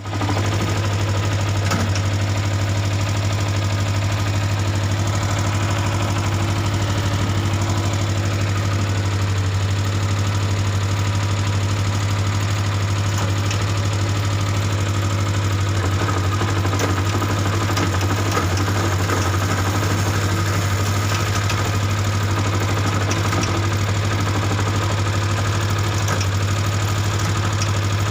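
Kawasaki ZZR250 parallel-twin engine idling steadily with a knock that the owner puts down to the clutch basket.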